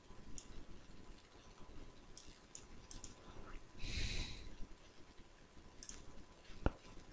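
Computer mouse clicking a few times at uneven intervals. There is a brief rush of noise about four seconds in, and a single sharper, louder click near the end.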